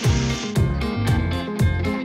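Background music: a guitar track over a steady beat of about two low drum hits a second.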